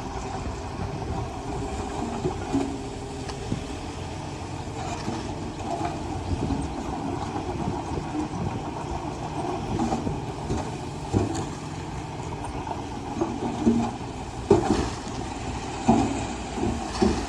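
Komatsu D20A crawler bulldozer working: its diesel engine running steadily while the steel tracks clank and rattle irregularly, with the loudest knocks in the last few seconds.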